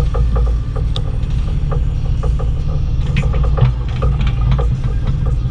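Bobcat E35i compact excavator's diesel engine running steadily under digging load, with irregular clanks and knocks from the bucket and boom working in the ditch.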